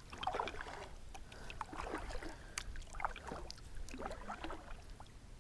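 Kayak paddle strokes in creek water: the blade dips and splashes about once a second, with a few light knocks.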